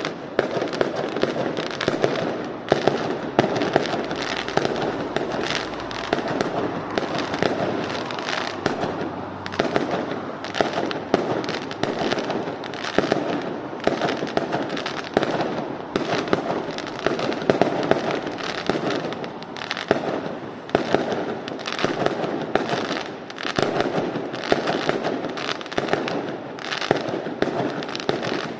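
Fireworks going off in rapid, unbroken succession: a dense stream of bangs and crackles that keeps the same loudness throughout.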